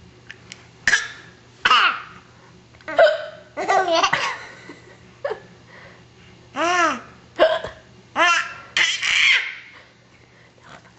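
A baby laughing in a string of short bursts and squeals, mixed with quick, sharp hiccups.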